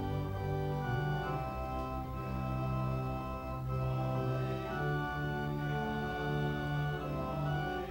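Church organ playing a hymn in slow, sustained chords that change every second or two.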